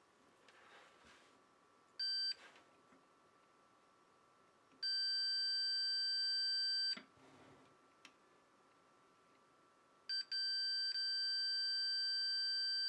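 A multimeter's continuity beeper sounds with a steady high-pitched tone as the test probes touch the leads of the remote control's power-indicator LED. It gives a short beep, then a beep of about two seconds, then a brief blip and a beep of about three seconds near the end. The meter reads close to zero across the LED, the sign of a dead short: the LED is shorted.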